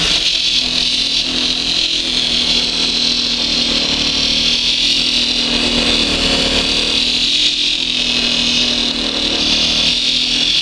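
Pillar drill spinning a sanding drum while glued catapult handle scales are pressed against it and sanded to shape: a steady motor hum under a loud, continuous sanding hiss.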